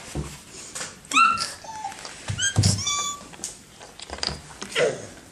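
Kitten meowing: a few short, high-pitched meows, the first and loudest about a second in and more around three seconds in, with a few soft knocks between.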